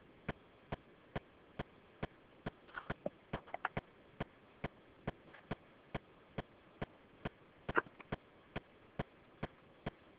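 Steady ticking, a little over two clicks a second, with a few irregular extra clicks about three seconds in and again near eight seconds in.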